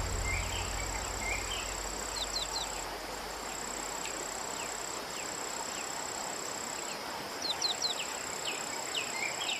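Outdoor nature ambience: birds giving short, falling chirps, often in quick runs of two or three, over a steady high-pitched drone. A low hum fades out in the first few seconds.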